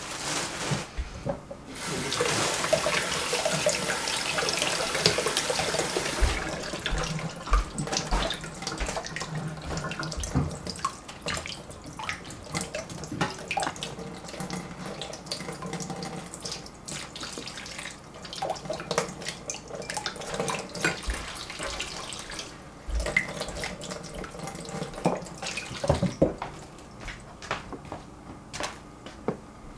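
Kitchen sink tap running strongly for a few seconds, then softer running water with scattered knocks and clatter as radishes are rinsed under it.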